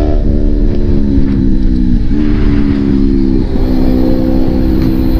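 Gravel bike coasting fast downhill on asphalt: heavy wind rush on the microphone with a steady buzzing hum from the bike whose pitch follows road speed, dipping briefly about two seconds in.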